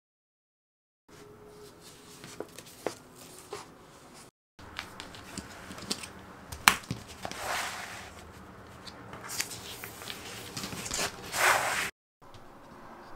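Silence for about a second, then scattered light clicks and taps and the crinkling rustle of a large sheet of unpasted wallpaper being handled and laid out, loudest near the end.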